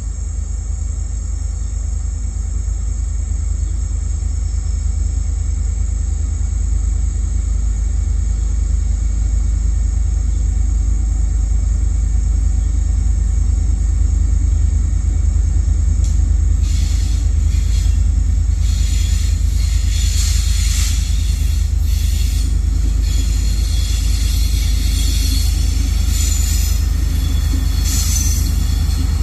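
Diesel freight locomotives rumbling as the train approaches and passes, the rumble slowly growing. From about halfway through, the rattle and clatter of wheels on the rails joins in.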